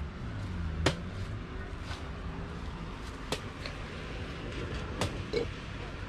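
Three sharp knocks, about two seconds apart, over a low steady rumble.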